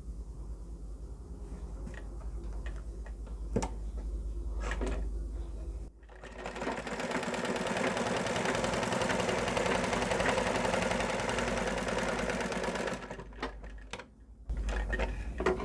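Domestic sewing machine stitching a test seam at a steady speed for about seven seconds, then stopping abruptly; this seam checks the stitch after the bobbin-case and upper-thread tension have been set. Before it starts, and after it stops, there are a few light clicks of handling.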